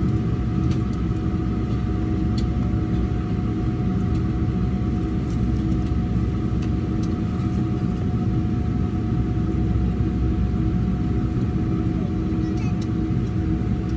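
Steady low drone of an airliner cabin, with a constant hum of a few steady pitches over the rumble.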